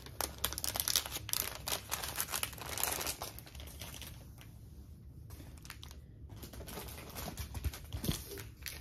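Clear plastic packaging bag crinkling and rustling as it is handled and opened, a dense run of crackles over the first three seconds, then sparser rustles.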